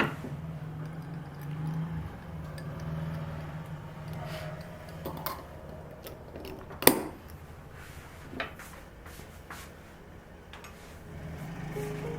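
Kitchen handling sounds: scattered light clicks and knocks of utensils and containers, with one sharper knock about seven seconds in, over a steady low hum.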